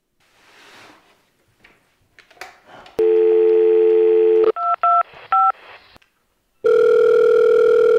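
Telephone line: a steady dial tone for about a second and a half, then three quick touch-tone key beeps, then a ringing tone as the call goes through.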